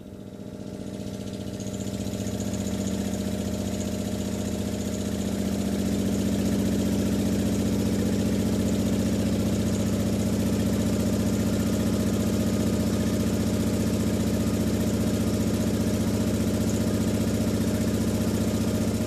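Prototype 24-inch XBL² subwoofer playing a steady low bass tone free-air at long excursion (about 2 inches), with a hiss over it. The tone builds in level over the first few seconds, holds, and stops just before the end.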